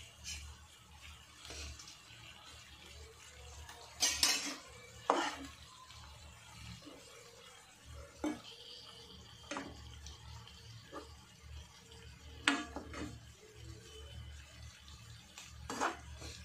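A metal spatula and spoon clattering and scraping against a non-stick frying pan as stuffed bitter gourds are laid into onion masala and stirred, with a string of sharp knocks, the loudest about four to five seconds in.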